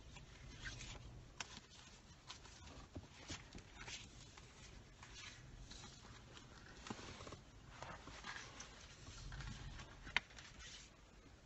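Faint rustling and clicking of a stack of glossy photo prints being handled and flipped through by hand, over a low background rumble.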